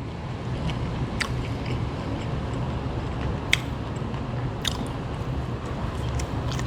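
A person chewing and eating food close to the microphone, with several sharp, wet mouth clicks and smacks scattered through it.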